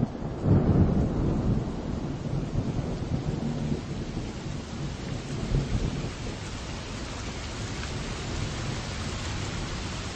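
Rain falling steadily with rolling thunder, the rumble loudest about half a second to a second in and then easing into a steady rain hiss.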